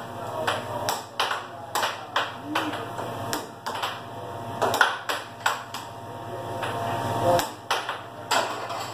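Plastic mallets and puck clacking sharply on an air hockey table during a fast rally, with irregular knocks several times a second and puck rebounds off the rails. A steady low hum from the table's air blower runs underneath.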